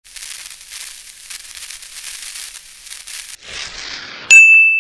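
Logo-reveal sound effects: a high crackling hiss for about three seconds, then a swish that falls in pitch, and near the end a loud bright ping that rings on one high note.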